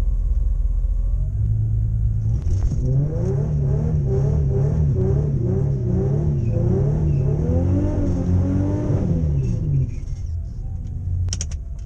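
Car engine revved up and down over and over, about eight quick rises and falls in a row over a steady running rumble, then settling back near the end.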